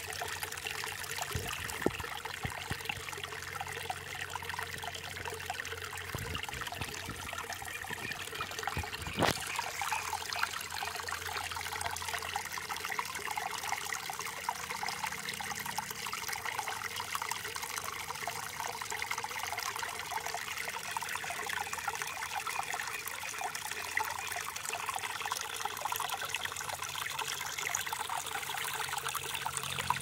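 Small shallow brook trickling and babbling steadily over stones and through grass, with a couple of brief sharp clicks, the loudest just after nine seconds in.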